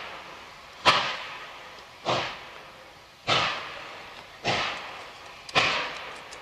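Exhaust beats of the NSW C38-class steam locomotive 3801: five slow, heavy chuffs evenly spaced a little over a second apart, each a sharp blast dying away. The engine is working hard at very low speed with its cylinder drain cocks open.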